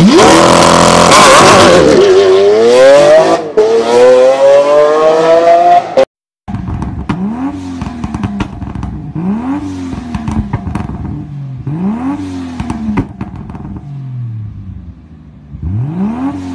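A Lamborghini Aventador's V12 revving loudly, its pitch climbing steadily over several seconds. After a sudden cut, a Nissan 240SX (S14) exhaust gives four quick throttle blips, each rising and falling in pitch, with sharp pops between them.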